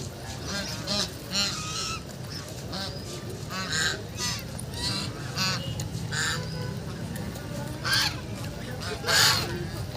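Domestic ducks calling over and over, short harsh calls coming every half second or so, the loudest a little after nine seconds in.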